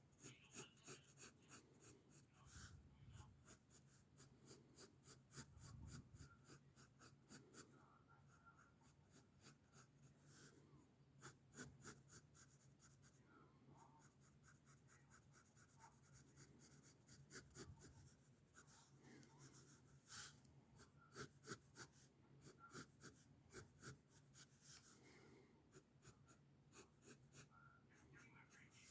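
Faint pencil strokes scratching on paper, quick repeated short strokes in runs of several a second with brief pauses between.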